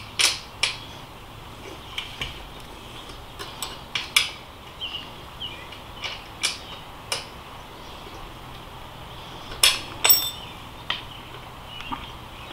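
Scattered light metallic clicks and clinks of hand tools and small metal brake parts being handled while working on an e-bike disc brake, with two sharper ringing metal taps about ten seconds in.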